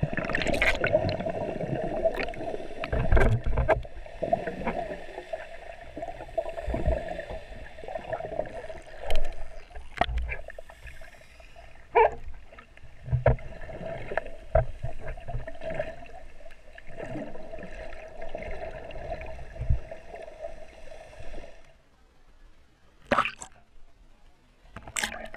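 Water heard through a camera held underwater: muffled sloshing and gurgling with scattered knocks and low thumps, over a steady hum that stops after about twenty seconds. Two sharp splash-like knocks near the end.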